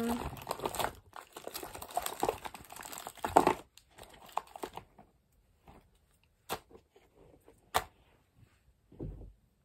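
Candy packaging crinkling and rustling as it is rummaged through, dense for the first few seconds, then two sharp clicks and a soft thump near the end.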